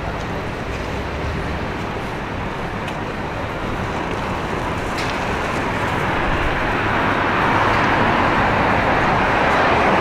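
City street traffic noise, a steady wash of vehicle and tyre sound that swells gradually louder.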